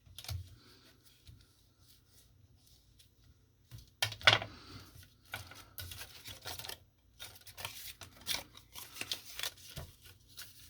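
Paper and cardstock rustling, with short crinkles and taps as a folded paper assembly is handled. A louder rustle comes about 4 s in, and a dense run of quick rustles follows through most of the rest.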